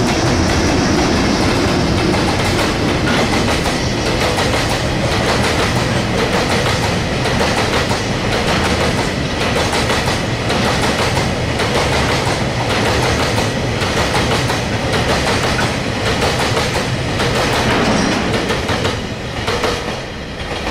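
Freight train passing at speed: a JR Freight EH200 twin-unit electric locomotive followed by a long string of oil tank wagons, wheels clacking over the rail joints in a steady, rapid rhythm. The clatter falls away near the end as the last wagons clear.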